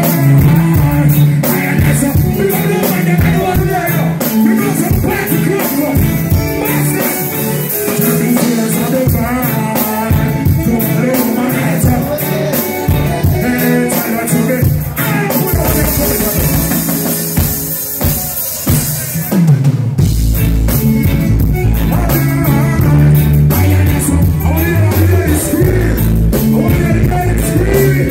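Live reggae: a singer performing over a full band with drums and guitar, loud and dense. A deep bass comes in heavily about two-thirds of the way through.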